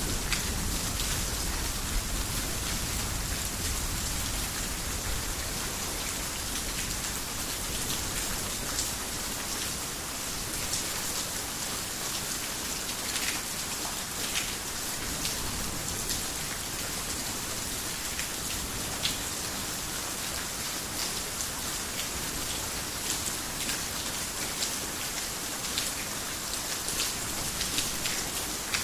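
Heavy rain falling steadily, with many sharp ticks of individual drops over an even hiss. A low thunder rumble trails off in the first second or so.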